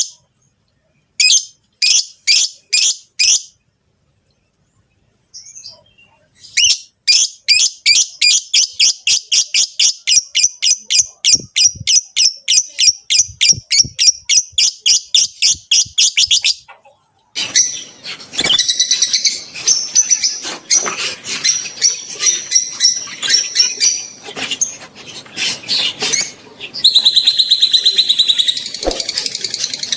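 Lovebirds' mating calls: a few sharp chirps, then a long run of rapid, evenly repeated chirps at about three to four a second. About halfway through this gives way to dense, overlapping chattering, which grows louder near the end.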